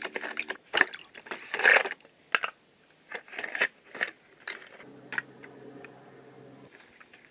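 Plastic toy pieces of an Aqua Play water play set clicking and knocking against each other in the water, a quick run of irregular taps that thins out after about two seconds into a few scattered knocks.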